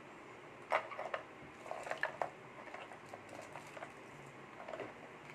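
Small plastic clicks, taps and light rustling as GoPro mounting accessories are handled over their hard case. The clearest click comes just under a second in, and the others are scattered after it.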